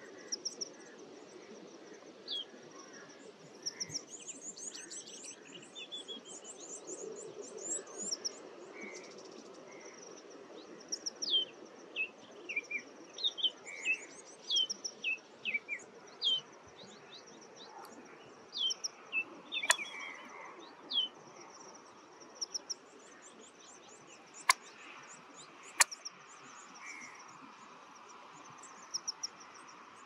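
Wild birds chirping: many short, high, downward-sliding chirps, thickest in the middle stretch, over a steady high insect-like trill, with a few sharp clicks in the second half.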